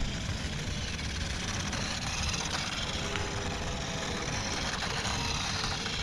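Small 1:18-scale toy RC truck running on wet asphalt, heard as a steady noise with a low rumble and no distinct knocks or bumps.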